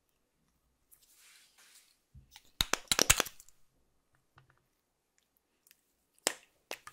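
Lip gloss applicator wand dabbed and drawn through clear slime: a faint sticky smear about a second in, then a quick cluster of sharp clicks and crackles a little before the middle, and two more clicks near the end.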